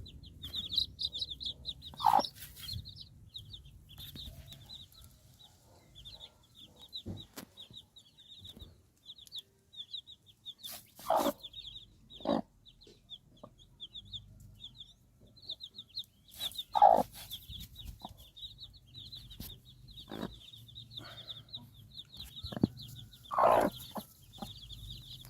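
Chickens clucking, with a few loud, short squawking calls scattered through, over a continuous rapid high-pitched chirping.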